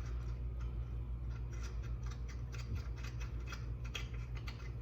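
A lug nut being tightened onto a wheel stud: a quick, irregular run of light clicks over a steady low hum.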